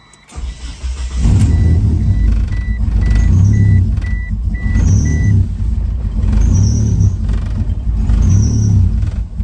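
A 1997 Mitsubishi Eclipse GSX's turbocharged 2.0-litre four-cylinder is cold-started: it cranks briefly and catches about a second in. It then runs loudly with a swell in its sound every second and a half or so, on a cold start the owner says it doesn't like. A dashboard warning chime beeps about twice a second through the first five seconds.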